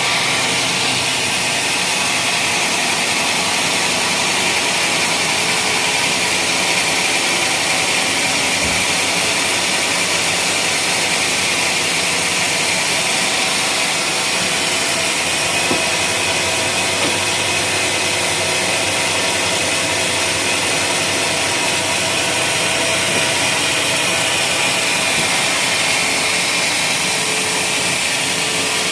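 Sawmill wood-sawing machine running loudly and steadily, with a constant high whine over its mechanical noise.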